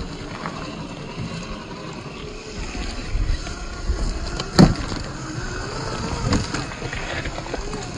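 Electric motor and drivetrain of a 1/10-scale Traxxas TRX-4 rock crawler whining, its pitch wavering up and down with the throttle, over wind rumble on the microphone. A single sharp knock about four and a half seconds in, the truck striking rock.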